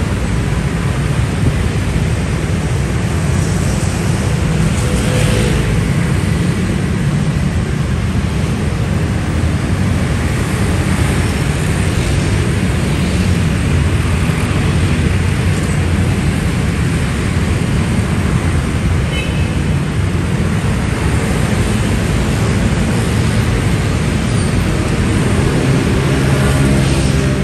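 Dense road traffic of motorcycles and cars: a steady, loud rumble of many engines and tyres passing. Near the end one engine stands out with a pitched hum as it passes close.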